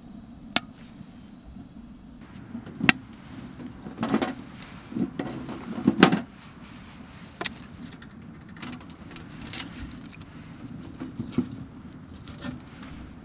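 Wood fire burning in a small steel camping wood stove, crackling with scattered sharp pops. A cluster of louder knocks comes about four to six seconds in.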